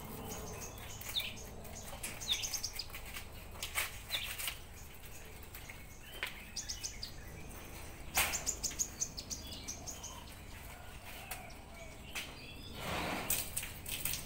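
Rabbits chewing cabbage leaves: irregular crisp crunching clicks. Brief high bird chirps and trills come through now and then, and a short rustle swells near the end.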